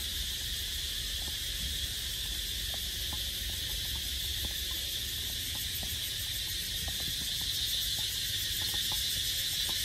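Steady, unbroken high-pitched droning of insects in the trees, with a low rumble underneath.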